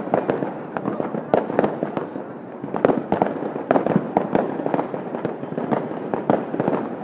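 Aerial fireworks going off: a rapid, irregular string of bangs and crackling pops, several a second, over a continuous din.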